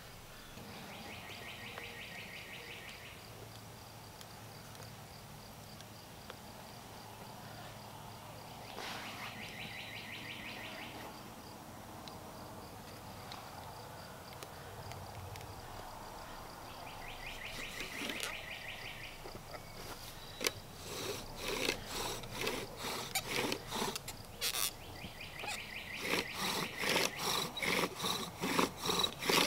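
An insect buzzing in short bursts of about two seconds, repeating every several seconds. About two-thirds in, a bow drill starts: a steady rhythm of back-and-forth bow strokes, the wooden spindle rubbing in the fireboard, growing louder.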